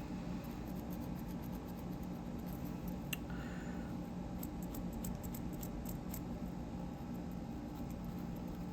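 Faint scratching of a rust eraser rubbed over a small metal part to scrub off rust spots, over a steady low hum, with one small sharp click about three seconds in.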